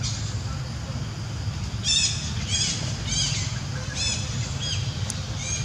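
A bird calling a run of short, high chirps, roughly two a second, starting about two seconds in.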